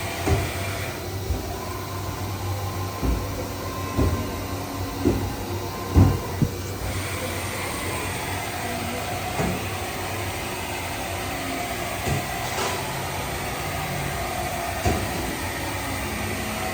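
Haas VF-6SS vertical machining center running with a steady hum, with scattered clunks and knocks, the loudest about six seconds in. A high hiss stops about a second in and comes back a little before the middle.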